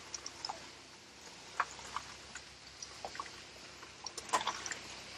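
Rain falling, single drops ticking irregularly against a surface over a faint steady hiss.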